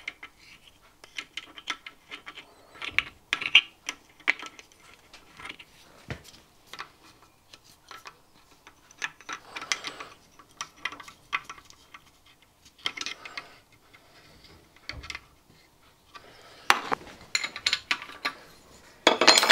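Adjustable spanner working a small steel nut on a steam engine's crankcase: irregular metallic clicks and taps as the jaws are shifted and the nut is turned, with a louder clatter of metal on metal near the end.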